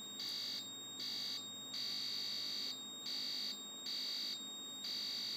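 Logic probe beeper sounding a single high tone that switches on and off six times, in stretches of about half a second to a second. The tone follows the probed blue-1 data bit at the video DAC as it toggles between high and low.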